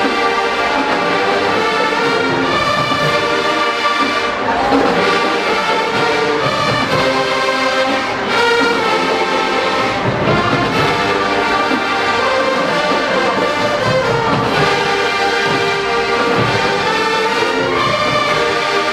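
Marching band playing, its brass section carrying sustained chords and melody with percussion underneath.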